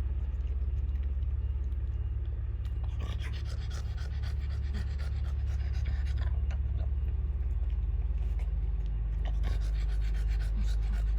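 A dog panting steadily and rapidly, close to the microphone.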